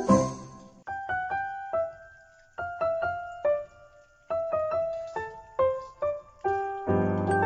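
Background music: a simple melody played one note at a time, each note ringing and fading, with fuller chords near the end.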